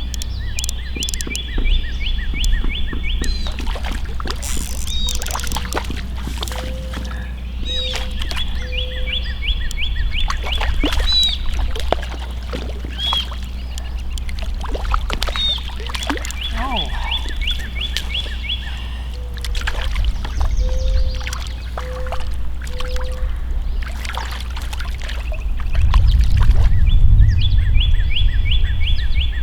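A trilling animal call, repeated four times, each trill two to three seconds long, over scattered sharp clicks, with a low rumble rising near the end.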